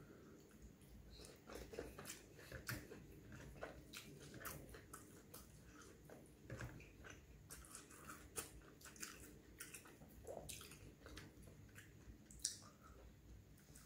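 Faint close-miked chewing and biting of a man eating roti and fish curry by hand, with many short mouth clicks at irregular intervals.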